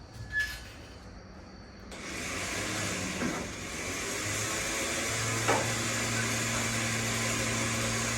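A motor-driven machine starts about two seconds in and runs steadily with a strong hiss and a low hum, with a few light knocks.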